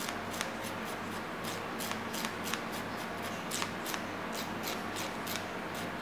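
Emery-board nail file rasping across a baby monkey's fingernails in quick, short strokes, about three a second.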